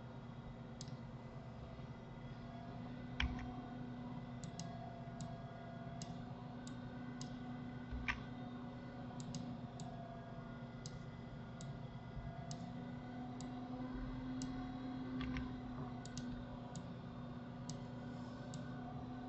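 Computer mouse clicks and keyboard key presses: light, sharp clicks about once or twice a second, with three heavier knocks. A steady low hum runs underneath.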